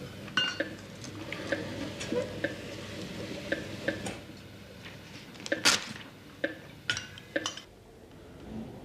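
Irregular metallic clinks and clicks of medical instruments and equipment being handled, with the loudest clatter a little past halfway; the clinking stops shortly before the end.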